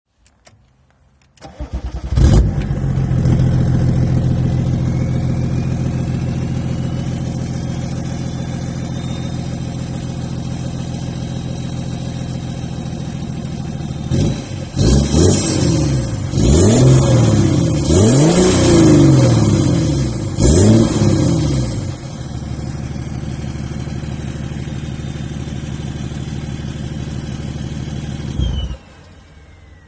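BMW E39 530d's straight-six turbodiesel running with the exhaust disconnected and only the decat pipe fitted, so it is unsilenced. It starts about two seconds in, idles, is blipped four times in quick succession about halfway through, drops back to idle, and is switched off near the end.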